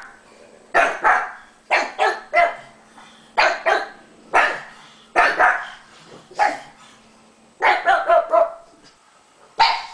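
Pugs barking over and over in quick volleys of one to three barks, separated by short pauses.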